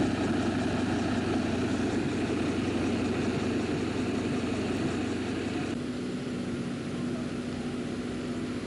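Fire engine's engine running steadily, an even low rumble, with a steady hum joining about two thirds of the way in.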